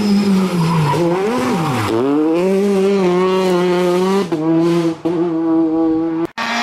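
Citroën DS3 R5 rally car's turbocharged 1.6-litre four-cylinder engine at high revs. Its pitch falls and climbs again between about one and two seconds in as it goes through the corner, then holds high and steady, with brief breaks near four and five seconds in. The sound cuts out for a moment near the end.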